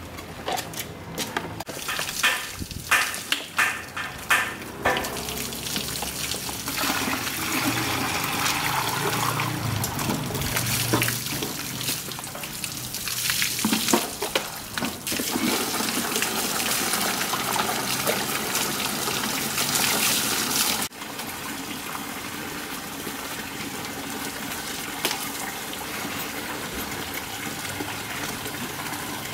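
Water being scooped from a plastic bucket with a dipper and splashed and poured over a pug as it is bathed, with hands scrubbing the wet coat. A run of short splashes at the start gives way to a continuous wash of water, which drops suddenly to a quieter, steady wash about two-thirds of the way through.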